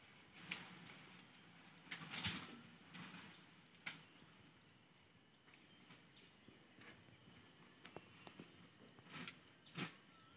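Faint, steady high-pitched drone of insects, two unbroken tones, with a few soft knocks and clicks scattered through it.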